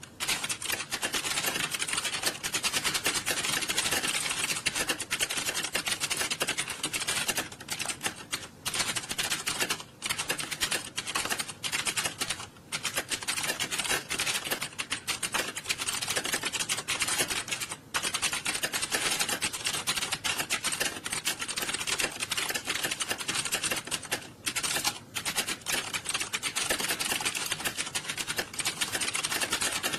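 Many computer keyboards being typed on fast at once during a timed typing test, a dense, unbroken clatter of keystrokes with a few brief lulls.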